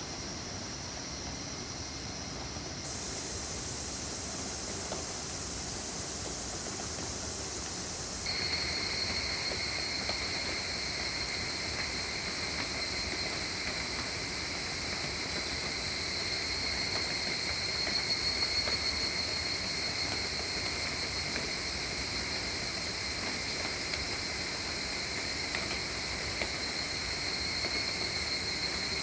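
Steady rain falling on a forest, an even hiss that grows louder at about three and eight seconds in. From about eight seconds in, a faint steady high-pitched tone runs alongside it.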